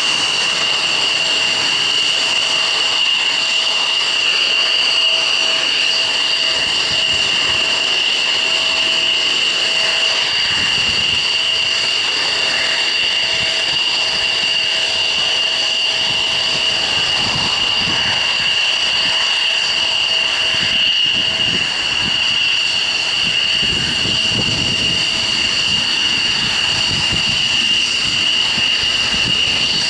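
Aircraft turbine engine running steadily: a strong, high-pitched whine over a rushing hiss, holding the same pitch and level.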